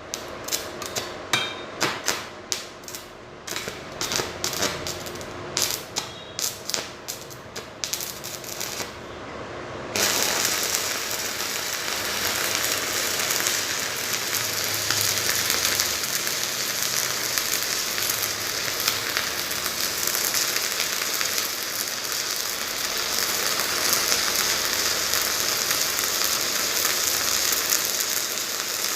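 Stick (MMA) arc welding with 3.2 mm electrodes on mini inverter welders set to 180 A. For about the first ten seconds there are irregular sharp pops and crackles as the arc starts and stutters. It then settles into a steady, continuous crackling hiss of the burning arc.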